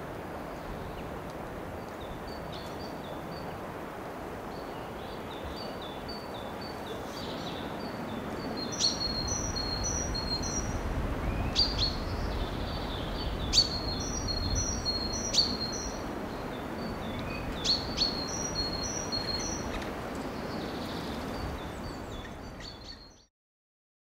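Small birds singing: short high notes in repeated two- and three-note phrases, with a few sharp taps, the loudest about halfway through. A low rumble joins about a third of the way in, and everything fades out near the end.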